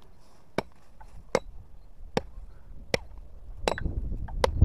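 A rubber boot kicking a dry, rotten log, giving six sharp knocks about 0.8 s apart. A low rumble builds near the end.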